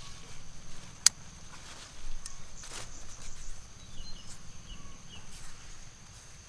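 Outdoor rural ambience: a steady high-pitched insect drone, with a sharp click about a second in, some rustling knocks, and a few faint bird chirps.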